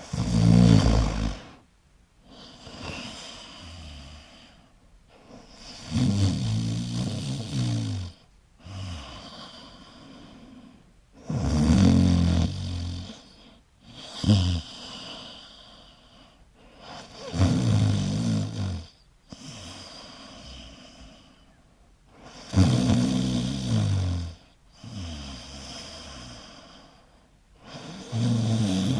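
A sleeping person snoring: a loud, low snore about every six seconds, with softer breathing between, and one short extra snort midway.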